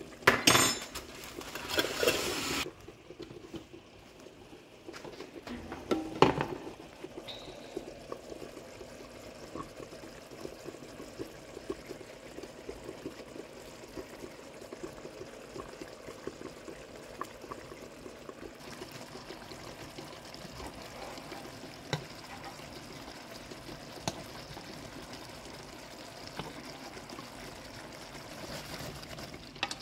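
Brown stew sauce simmering in a frying pan with a steady light bubbling and crackle. A spatula stirs through the sauce for the first two or three seconds, and there is a single knock about six seconds in.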